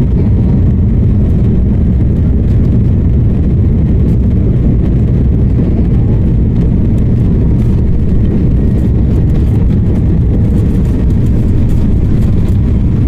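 Steady low rumble of an Embraer E195-E2's Pratt & Whitney PW1900G geared turbofan engines and airflow, heard inside the passenger cabin.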